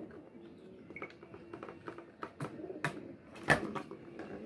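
Light clicks and taps of wires and fingers on an access-controller circuit board's screw-terminal blocks, a few scattered ones with the sharpest about three and a half seconds in. A bird coos softly underneath.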